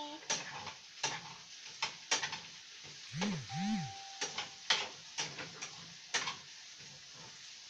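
Ground pork and potatoes sizzling in a frying pan on a gas stove, stirred with a utensil that clicks and scrapes against the pan many times. About three seconds in, a short low sound rises and falls twice.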